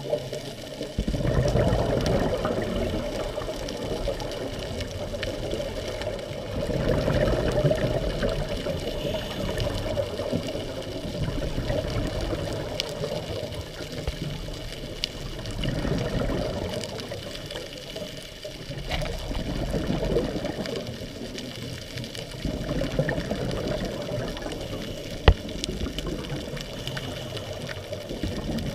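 Scuba regulator exhaust bubbles heard through an underwater camera: a rushing, bubbling noise that swells every few seconds with each exhaled breath, over a steady muffled water background. A single sharp click sounds near the end.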